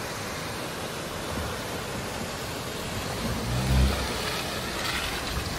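A 2005 Toyota RAV4's engine pulling the car slowly up a muddy track through a shallow stream, swelling briefly about three to four seconds in as it comes closest, over the steady rush of a nearby waterfall.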